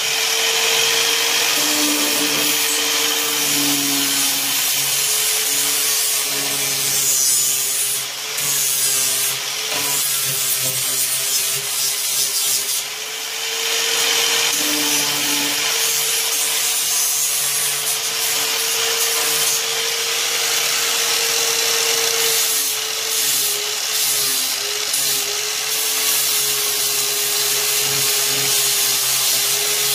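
Corded electric angle grinder running steadily with a whine, its abrasive disc grinding and shaping a fiberglass patch on a golf cart's front body panel. The pitch wavers a little as the disc is pressed in, and the level dips briefly twice in the first half as it eases off the work.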